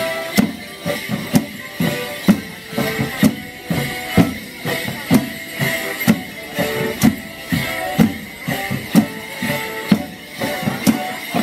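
Border morris band playing a dance tune, held melody notes over a drum that beats strongly about once a second with lighter beats between. Sharp clacks come along with the beat.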